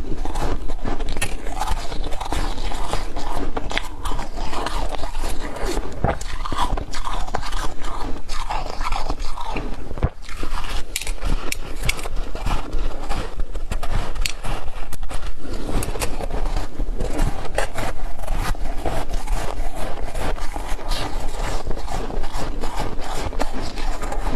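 Soft crushed ice being bitten and chewed in big mouthfuls, close-miked: a continuous dense, crunchy crackle.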